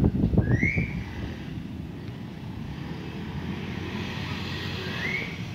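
Distant jet cargo plane's engines giving a steady rushing noise that swells in the middle as it rolls along the runway just after landing. Wind buffets the microphone in the first second.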